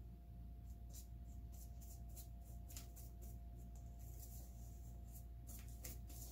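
Faint scratchy strokes and light ticks of a paintbrush working paint onto a small cutout and dipping into a paint cup, over a steady low hum.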